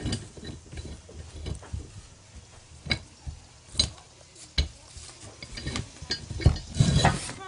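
A rusty 24-inch pipe wrench being taken apart by hand: sharp metal clicks and scrapes at irregular intervals, with a louder clatter near the end.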